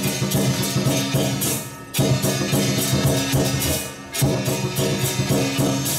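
Lion dance percussion: a large drum and clashing cymbals playing a steady driving beat, in loud phrases that drop back briefly about every two seconds.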